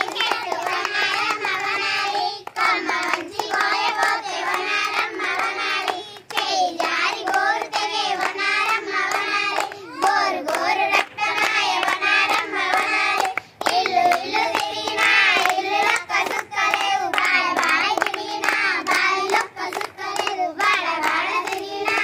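A group of girls singing a traditional Telugu Kamudu folk song together, clapping their hands along with it.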